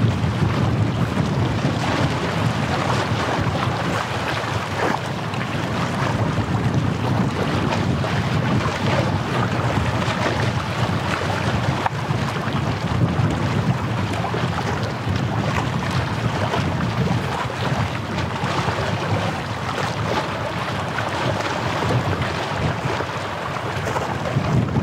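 Wind buffeting the microphone on a seashore, a steady, uneven low rumble, with sea waves washing in underneath.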